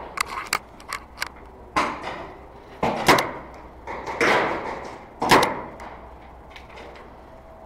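Scattered sharp pops and knocks of game guns firing, with louder shots about three and five seconds in.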